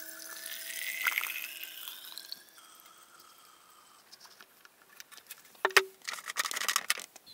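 Fuel pouring from a jerrycan through a funnel hose into a chainsaw's fuel tank, the pitch of the pour rising steadily as the tank fills, then trailing off. About six seconds in there is a sharp knock, then a short rattle of handling.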